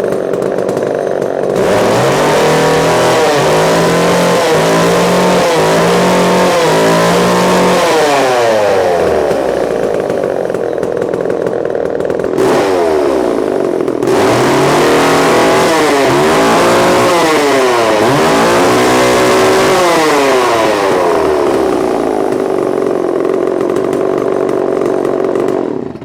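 Homelite Super XL-925 Automatic two-stroke chainsaw running. It idles, then is revved in a run of short throttle blips that rise and fall, drops back to idle, is revved again in a second series of blips, then idles until it cuts off near the end.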